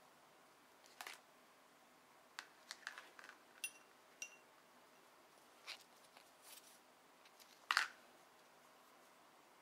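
Scattered light clicks and taps of fingers handling a thin plastic candy tray and small pieces of candy. Two short ringing clinks come a few seconds in, and a sharper click is the loudest sound near the end.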